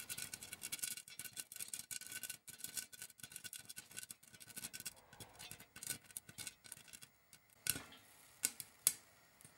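Popcorn kernels popping in a covered pan under a glass lid: quick, dense popping that thins out to a few scattered, sharper pops near the end, the sign that the batch is nearly done.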